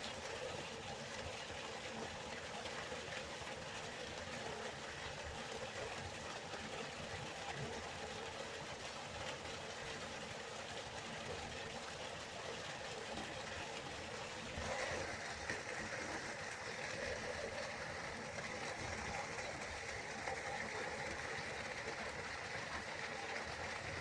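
River water flowing, a steady continuous rushing. About fifteen seconds in its tone changes abruptly, with more of a mid-pitched hiss.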